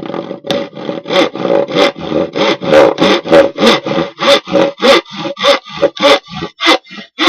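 Fine-toothed hand saw cutting through hard, waterproof-glued multiplex plywood. The sawing goes in quick, even strokes, about three a second.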